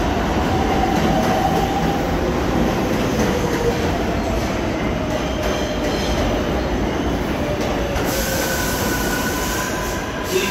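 New York City subway train of the R142 family running along the platform, with a steady rumble and a faint motor whine that slowly falls in pitch. About eight seconds in, a high wheel squeal joins.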